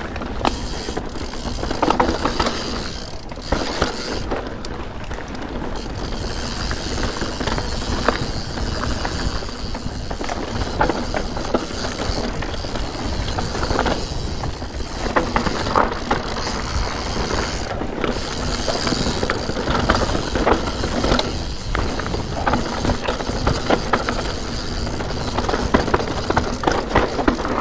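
Santa Cruz Nomad 4 full-suspension mountain bike riding fast down a rough dirt trail: tyres rolling over dirt, roots and rocks and the bike rattling, with constant knocks and clatters.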